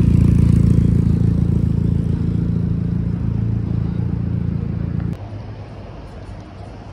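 Ford Mustang V8 in a converted MG Midget, running steadily at low revs as the car rolls past. The deep engine note cuts off suddenly about five seconds in.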